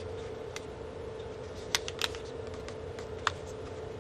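Sharp clicks and taps of small hard parts being handled as a MacBook Pro Retina display assembly and its plastic hinge-cover strip are fitted, with three louder clicks, two about halfway through and one about three seconds in, over a steady low hum.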